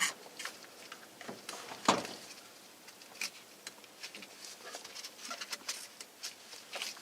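Scattered light clicks and rustling of a turn signal switch wiring harness being worked down through a steering column, with one sharper knock about two seconds in.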